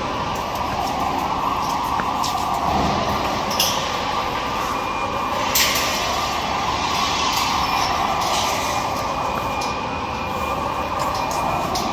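Steady mechanical drone with a slowly wavering pitch, broken by a couple of brief sharp clicks.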